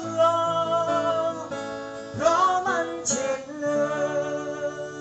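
Acoustic guitar playing the closing chords of a Thai country-style song, with a voice holding long drawn-out notes over it; the final chord rings out near the end.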